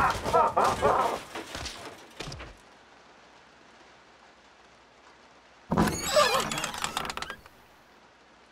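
Wordless cartoon squeals and cries at the start, then a quiet stretch, then a second burst of squeals with sliding pitch and clicks about six seconds in.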